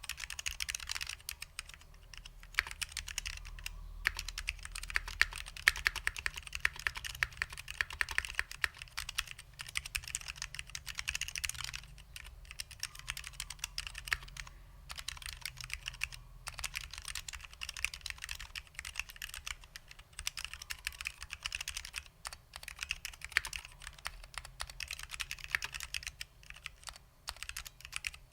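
Fast typing on a custom 60% mechanical keyboard with SKCL Green Alps switches, lubed with dry lube: a dense run of crisp keystroke clicks with a few short pauses.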